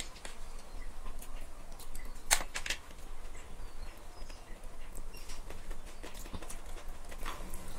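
Metal fork and spoon clinking against a ceramic plate: a few sharp clicks, the loudest pair about two and a half seconds in.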